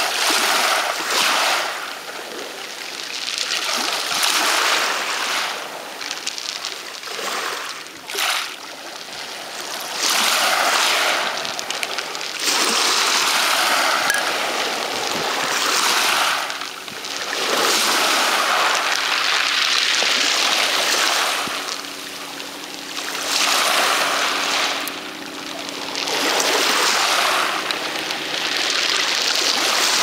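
Sea waves washing over a pebble beach: a hiss that swells and dies away every few seconds.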